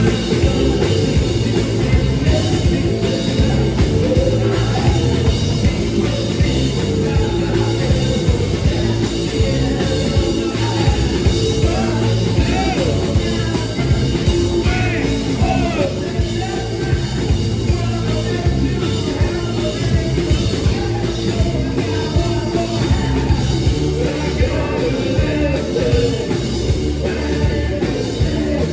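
A live band playing a loud song with drums, electric guitar and banjo, and a lead voice singing in places.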